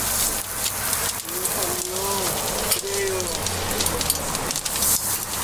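Batter sizzling in hot cast-iron fish-shaped bungeoppang molds, a steady hiss with many small crackles.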